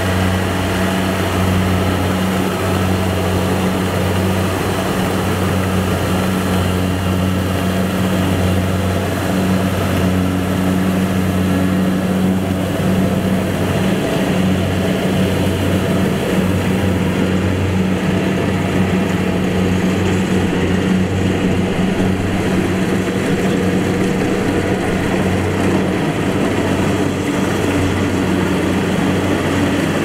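Kubota combine harvester running steadily: a continuous low engine drone with an even mechanical clatter over it.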